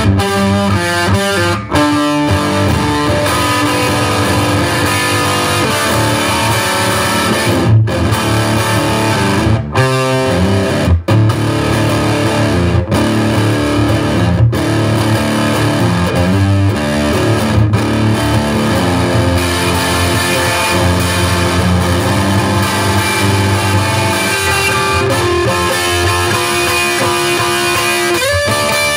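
Electric guitar, a Gibson Les Paul Studio tuned down a whole step, playing a blues riff, with a few brief stops between phrases.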